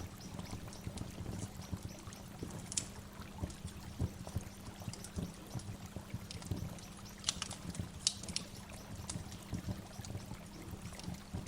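A waterfall of running, splashing water, with short high bird chirps now and then, most clearly near 3 seconds in and twice around 7 to 8 seconds in.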